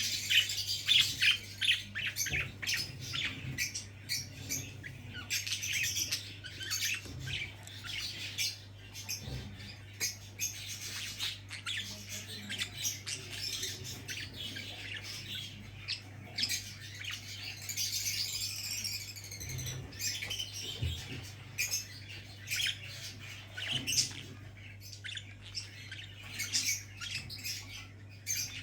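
Small pet parrots chirping and squawking in a quick, unbroken chatter of short high calls, over a steady low hum.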